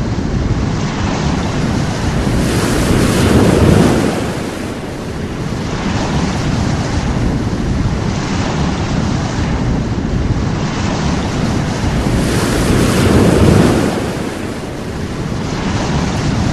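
Sea waves breaking and washing on a shore: a continuous rush that swells twice, about ten seconds apart, and ebbs between.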